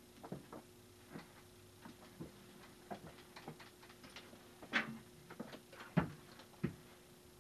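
Scattered, irregular light clicks and knocks from a person moving about and handling things at a workbench, with two louder knocks about five and six seconds in, over a faint steady hum.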